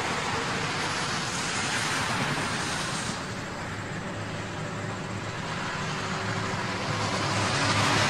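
Steady rumble and hiss of freeway traffic, easing off a little about three seconds in and building again near the end.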